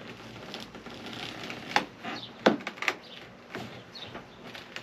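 Scattered knocks and clacks of a wooden board being worked loose and pulled away from the van floor's edge, with three sharper knocks in the middle.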